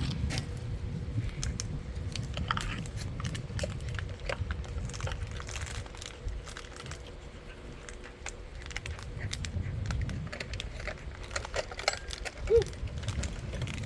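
Dog chewing and mouthing a homemade sock toy, making irregular crackling clicks like a crackling fire. A brief squeak sounds near the end.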